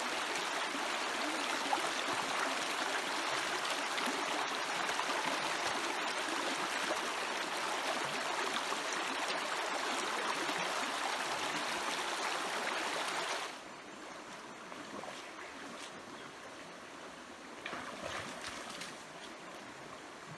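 Flowing stream water, a steady rush of water; about two-thirds of the way through it drops suddenly to a quieter trickle, with a brief louder bit of water noise near the end.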